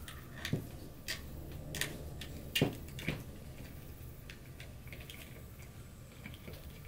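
Quick-detach sling swivels and a leather sling being handled on a rifle, the swivels clicked into their sockets: about five light metal clicks in the first three seconds, the loudest about two and a half seconds in, then only faint handling.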